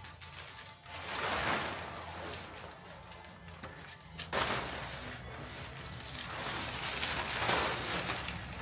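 Plastic sheeting rustling and crinkling in three swells as it is handled and hung, over a steady low hum.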